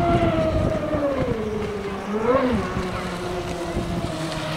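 Twin brushless electric motors of a large RC racing boat whining at speed, the pitch sliding down over the first two seconds, briefly rising and falling again a little after two seconds, then holding steadier and lower.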